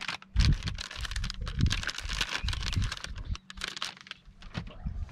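Rapid, irregular clicking and clattering with a few low knocks, like gear being handled on a boat deck.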